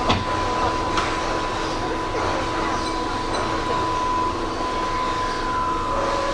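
Keihan electric train running, heard from inside the leading car: a steady rumble of wheels and running gear with a steady whine and a few sharp rail clicks, one about a second in. A second, lower steady tone joins near the end.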